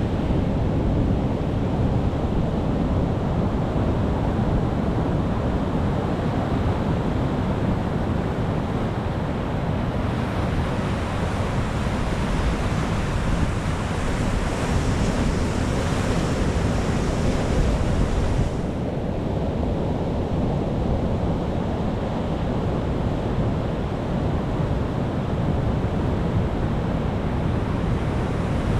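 Pacific Ocean surf breaking on rocks: a continuous, deep rushing wash. A brighter hiss of foaming water builds from about ten seconds in and cuts off sharply around eighteen seconds.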